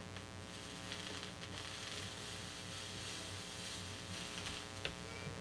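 Steady electrical hum under soldering a stained glass seam, with a faint hiss and a few soft ticks and crackles as the soldering iron melts solder and flux into the bead.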